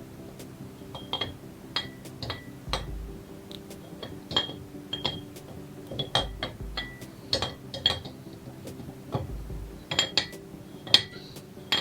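Irregular light metallic clinks and taps, a dozen or so, each ringing briefly, from small metal engine parts and tools being handled and set down.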